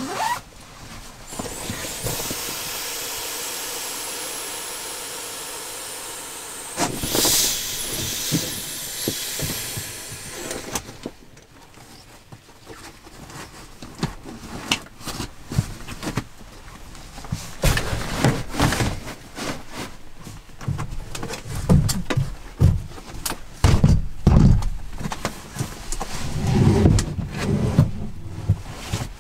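Camping gear being handled: a long steady rasp for several seconds as the nylon sleeping bag is packed, then loud fabric rustling. After that comes a run of clicks, knocks and heavier thumps on the wooden floor as a metal-framed folding chair is set up near the end.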